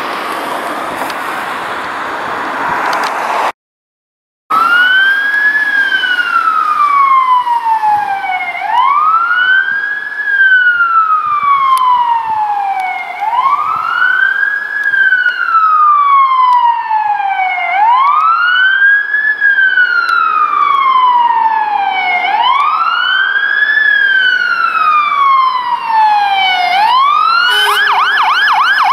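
Fire engine's siren on a Scania GBA tender sounding a slow wail, each cycle rising quickly and falling slowly over about four and a half seconds. Near the end it switches to a fast yelp. It is preceded by about three seconds of rushing noise that cuts off abruptly.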